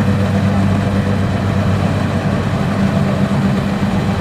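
Combine harvester running steadily, its engine holding an even, low hum.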